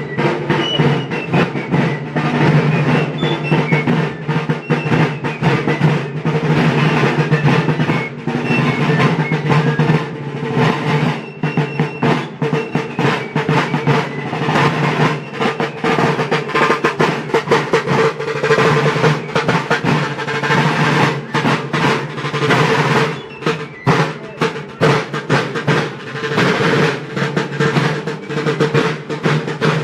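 Several rope-tensioned field drums beating a march cadence with rolls.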